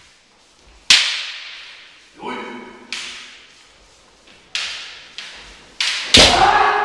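Bamboo shinai clacking together in kendo sparring: about seven sharp cracks, each ringing off into the room, with a short shout about two seconds in. Near the end a loud kiai shout comes with a strike.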